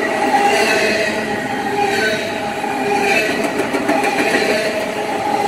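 Double-stack intermodal container cars of a freight train rolling past close by: a steady, loud rumble of steel wheels on the rails.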